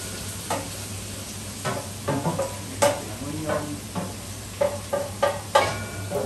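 Chopped onions sautéing in a large stainless steel stockpot, stirred with a metal spatula. Scraping, clinking strokes against the pot, about one or two a second, sound over a steady sizzle.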